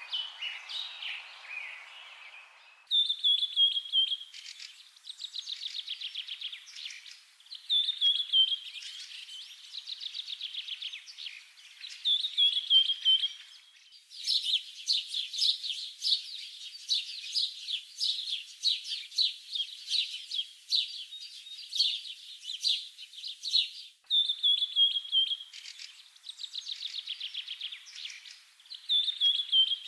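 Songbirds chirping and singing: a phrase of a short falling whistle followed by a rapid trill repeats every few seconds, with busier overlapping chirps through the middle. The sound changes abruptly three times, as at edit cuts.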